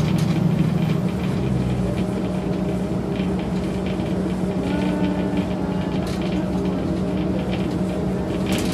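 Engine and road noise of a large vehicle cruising, heard from inside the cab: a steady drone with a constant low hum.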